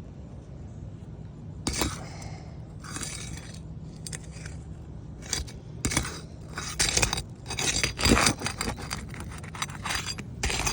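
Scrapes and sharp metallic clinks of a roofer's tool working under asphalt shingles to lift them and free the nails. Sparse at first, then rapid and irregular in the second half.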